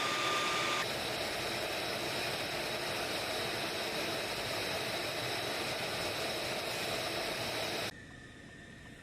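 Steady jet engine noise with a high whine, from a fighter jet running on the ground. The sound changes abruptly about a second in and drops off sharply near the end.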